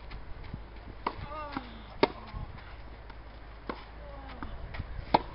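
Tennis balls struck by rackets in a rally on a clay court: four sharp pops, the loudest about two seconds in and another just before the end, with fainter ticks between.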